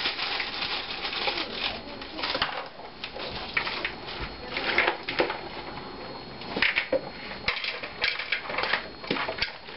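Salad being tossed with a utensil in a plastic bowl: lettuce and crunchy noodles rustling, with many quick irregular clicks and scrapes of the utensil against the bowl. Near the end the salad is tipped out into a second bowl.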